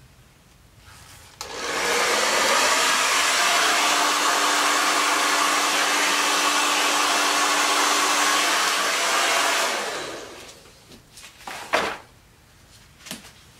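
Hair dryer running for about eight seconds, a steady rush of air with a low hum, blowing the wet paint on a Dutch-pour tabletop; it switches on abruptly and winds down when switched off. A couple of sharp knocks follow near the end.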